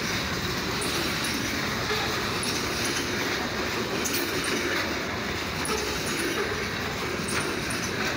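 Freight train cars rolling steadily past at close range, a continuous rumble of steel wheels on rail with a few faint, short high clicks and squeaks scattered through it.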